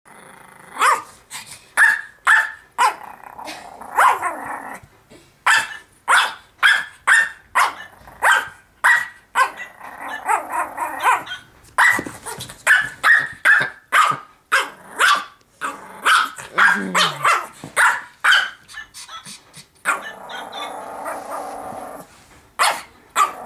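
Small dog barking over and over in sharp yaps, with growling between the barks, as it faces off with a plush toy dog; near the end the barks give way to a longer growl before a few more barks.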